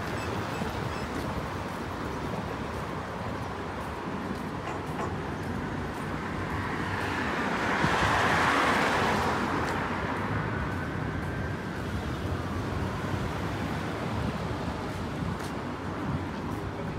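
Street traffic noise along a wide city road, with one car passing close by about halfway through, its sound swelling and fading over a few seconds.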